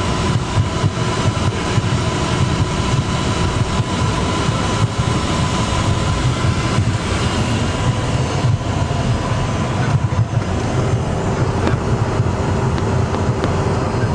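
Steady engine and airflow noise heard inside a private jet's cabin, a constant low rumble with a few faint steady hums over it.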